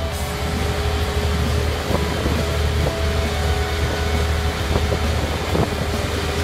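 Fire engine's diesel engine running steadily: a low drone with a steady whine above it, and a few scattered clicks and knocks.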